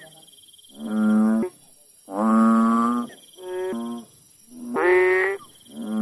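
Banded bullfrog (Kaloula pulchra) calling: a run of low, pitched calls, each under a second long, coming about once every second and a half. The third call is shorter and quieter, and another begins near the end.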